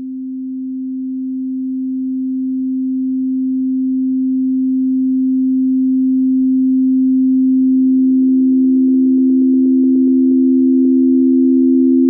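Electronically generated pure sine tone for tinnitus masking: a steady low tone that slowly swells in volume. A second steady tone, slightly higher, joins it about seven seconds in.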